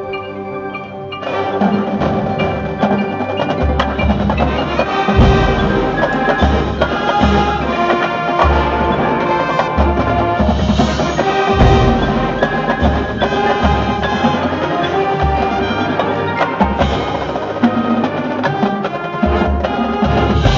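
A high school marching band playing. Sustained mallet-percussion and tuned chords open it, then about a second in the full band comes in, with repeated low drum hits underneath.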